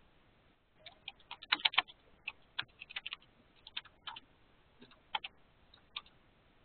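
Typing on a computer keyboard: irregular keystroke clicks starting about a second in, with a quick run of them at around a second and a half, then spaced-out keystrokes until shortly before the end.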